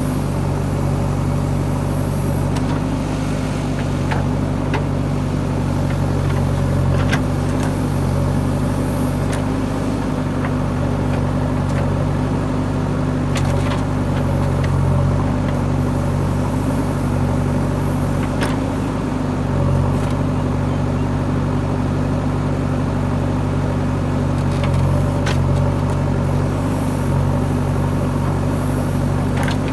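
Heavy diesel engine of a backhoe loader running steadily at a constant speed, with a few brief sharp clicks or knocks over it.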